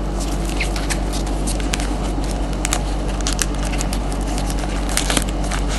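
Trading-card pack wrapper crackling and crinkling as it is torn open, many small sharp crackles over a steady low hum.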